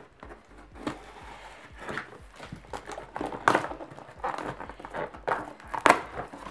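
Scissors slicing through the tape of a cardboard box, with scraping, rustling and crinkling of the packaging and a couple of sharper snaps midway and near the end.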